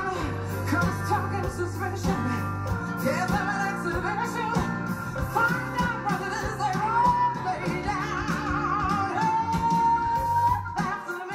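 A pop-rock song with a singer over a band and a steady beat, played back through SLAudio floor-standing speakers driven by a McIntosh MC302 power amplifier. A long note is held about nine seconds in.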